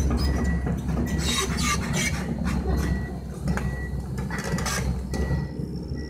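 Excavator's diesel engine running steadily under working load, with repeated metallic clanks and rattles from the bucket and tracks as it digs and lifts earth.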